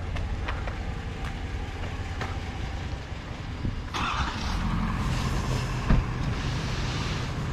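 A vehicle engine running with a steady low rumble, with light clicks and clatter over it, a noisier stretch from about four seconds in, and one sharp thump near six seconds.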